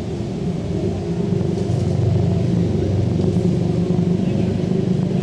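Steady low rumble of a motor vehicle, with no sharp events.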